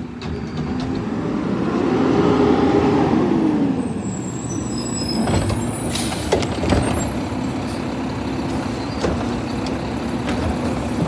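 Mack automated side-loader garbage truck pulling up, its diesel engine revving up and dropping back, then running steadily with a whining hydraulic pump. About six seconds in there is a brief hiss of air and metal clanks as the lifting arm grips the trash cart and starts raising it.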